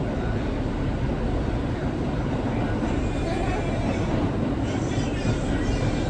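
A New York City subway car running along the track on the 6 line, heard from inside the car as a steady rumble and rattle of the train in motion.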